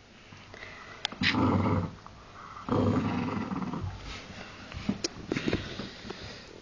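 A small dog play-growling: two rough growls of about a second each, the first about a second in and the second just under three seconds in, followed by a few softer short sounds and clicks.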